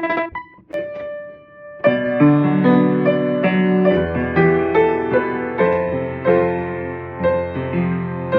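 Piano: a rapidly repeated single note breaks off, a few separate notes are struck, then from about two seconds in a passage of chords and melody is played over a held bass.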